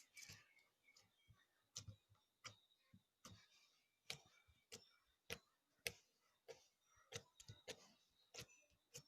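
Homemade clicky slime being worked, giving faint, sharp clicks and pops, irregularly spaced, about one or two a second.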